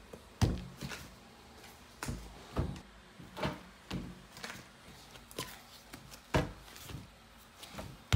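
Irregular soft thumps and knocks of dough being torn off, set down on a digital kitchen scale and pressed onto a worktable, about a dozen in all, the loudest about half a second in and again near the end.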